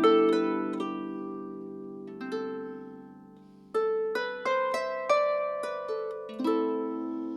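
Harp played solo: a plucked chord left to ring and fade, then, from just before halfway, a slow line of single plucked notes about every half second, each ringing on.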